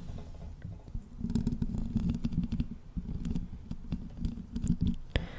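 Fingers scratching and rubbing directly on the microphone: a dense, low crackling rumble with many small clicks, starting about a second in and stopping near the end.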